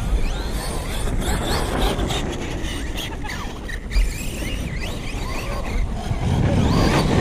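Electric RC car's motor whining up and down in pitch as it is driven hard, over a steady low rumble, with a sharp knock about four seconds in.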